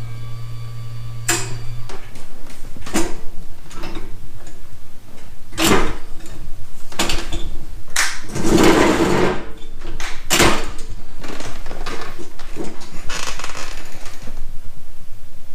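A small electric motor hums for about two seconds, then a string of sharp metal clunks and knocks as a power wheelchair is worked into place and hooked onto a snow plow attachment, with a longer rattling scrape just past the middle.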